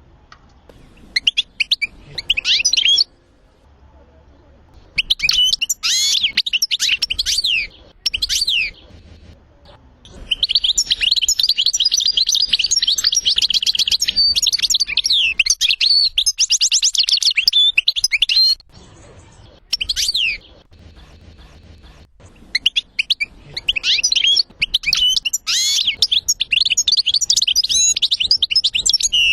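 European goldfinch song from a tutor cassette for training young goldfinches: bouts of rapid, high twittering broken by short pauses, with one long unbroken phrase of about eight seconds in the middle.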